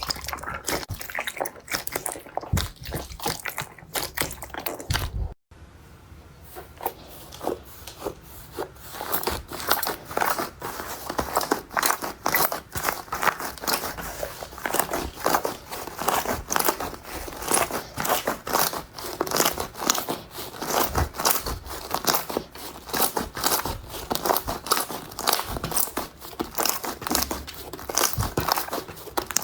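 Slime being pressed and squeezed by hand, giving a dense run of small crackles and pops. There is a short break about five seconds in.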